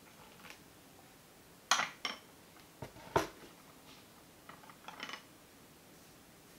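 Light clinks and knocks of teaware being handled: a stainless electric kettle set down on the table and a porcelain lid placed on a gaiwan. A handful of separate short clicks, the loudest a dull knock about three seconds in, followed near the end by a few quick light clinks.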